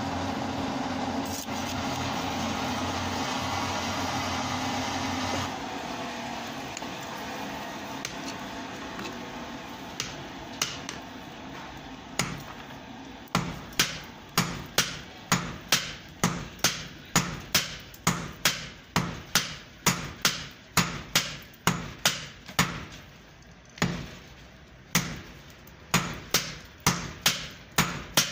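A forge's air blower hums steadily and cuts off about five seconds in. After a few scattered blows, a hand hammer pounds a red-hot steel bolt on a small anvil at about two blows a second, pausing briefly near the end before it resumes.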